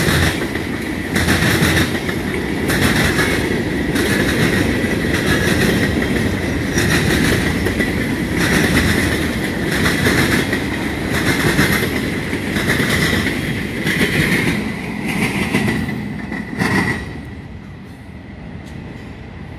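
Freight train cars rolling past, wheels clacking over rail joints about every second and a half over a constant rumble, with a steady high-pitched ring. The noise drops away near the end as the last cars go by.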